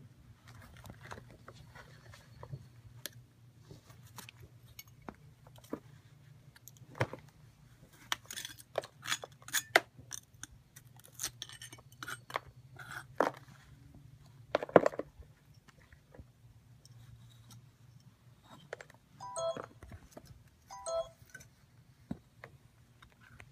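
Gloved hands breaking up and digging through damp green casting sand around an aluminum casting: irregular crunches and clicks of crumbling sand clumps and small scrapes, busiest in the middle. Near the end come two short squeaky scrapes.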